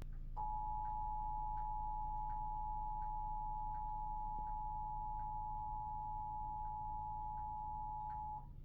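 Emergency Alert System attention signal: the two-tone 853 and 960 Hz alert, held steady for about eight seconds and cutting off sharply near the end. It announces a Required Weekly Test.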